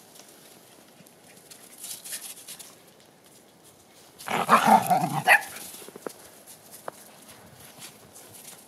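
Shetland sheepdogs at play; one bursts into a short flurry of barking about four seconds in, lasting about a second.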